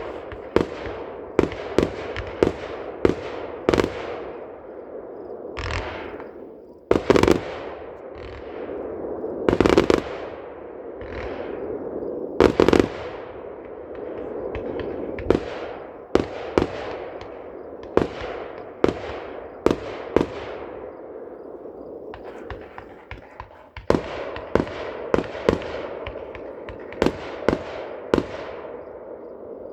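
Aerial fireworks display: a steady run of sharp bangs, about one a second, each trailing off, with a few longer, louder bursts in the first half.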